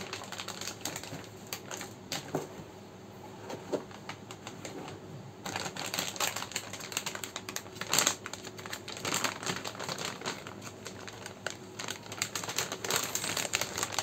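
Crinkling plastic bag and clicks of a cardboard box being handled, sparse at first, then thicker and louder from about halfway through.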